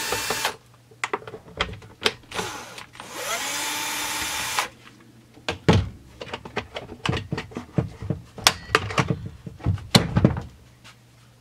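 Cordless drill-driver whirring in two runs, one ending about half a second in and a second run lasting about two seconds, backing out the screws of a Husqvarna 455 Rancher chainsaw's top cover. After it comes a string of sharp plastic clicks and knocks as the top cover is worked loose and lifted off.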